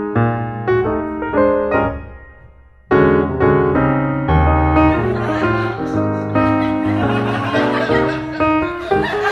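Piano music: a run of chords that dies away into a short pause about two seconds in, then starts again and grows fuller.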